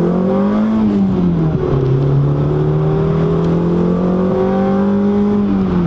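Nissan SR20VE four-cylinder engine in a 200SX SE-R, heard from inside the cabin, pulling hard under acceleration. It revs up, drops about a second and a half in as it shifts up a gear, climbs slowly in the next gear, then falls off near the end.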